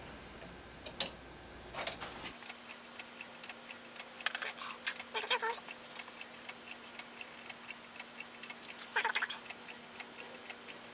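3D-printed grasshopper-escapement pendulum clock, printed in PLA+, running and ticking in a steady, regular rhythm of clicks. A few louder clicks and knocks are mixed in.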